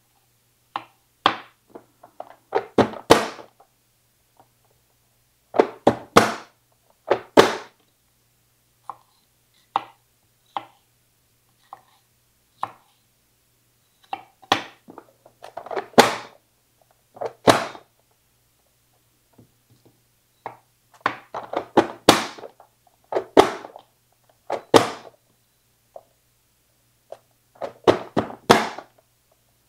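Kitchen knife chopping peppers on a wooden cutting board: sharp knocks of the blade on the board in uneven runs of a few strokes, with pauses between the runs.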